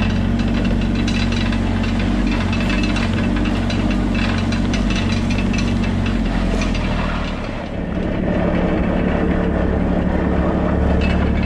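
Motor vehicle engine running steadily; after a brief dip about eight seconds in, its note settles at a different pitch.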